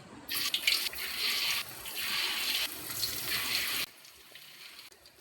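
Water running from a tap for about three and a half seconds, wavering in strength, then cutting off abruptly.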